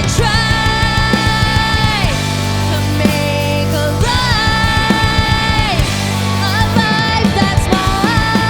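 Punk/indie rock band playing live: drums, bass and guitars, with long held notes that slide down in pitch twice.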